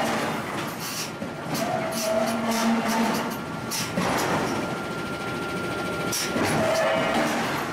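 Forge-shop noise: irregular sharp metallic clanks and knocks as steel tools are handled against the hot forging and anvil, over a steady mechanical drone with a few faint ringing tones.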